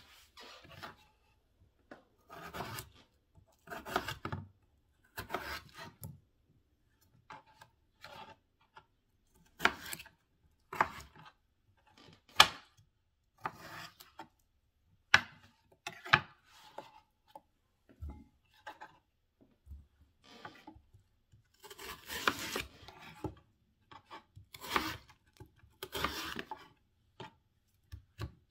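Chef's knife cutting red potatoes into chunks on a wooden cutting board: irregular slicing strokes with the blade rasping through the flesh and knocking on the board, a few knocks sharper than the rest. Near the end it cuts into a white onion.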